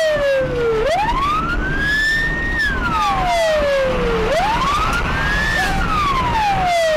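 Police car siren on a wail setting, its pitch climbing quickly, holding briefly at the top, then sliding slowly down, about every three and a half seconds.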